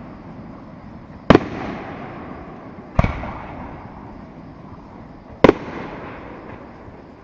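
Aerial fireworks shells bursting: three sharp booms about a second, three seconds and five and a half seconds in, each followed by an echoing rumble and faint crackle.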